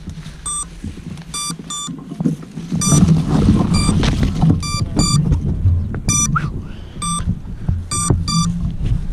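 An FPV quadcopter's beeper gives short, high beeps, singly and in pairs, about once or twice a second: the lost-model alarm used to find the drone after a crash. Under the beeps run rustling and low handling rumble as the camera moves through grass.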